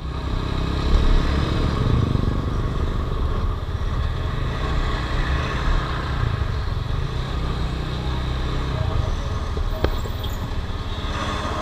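Motorcycle riding in traffic, heard from the rider's helmet camera: a steady engine drone under a deep, uneven rumble of wind on the microphone. A single sharp click sounds just under ten seconds in.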